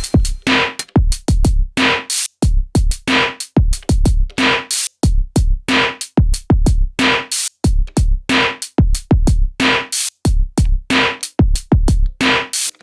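Elektron Digitone FM synthesizer playing a looping electronic drum pattern. Deep kicks drop in pitch, hissy snare and hi-hat hits sound between them, and short pitched percussion blips come in a steady, repeating groove.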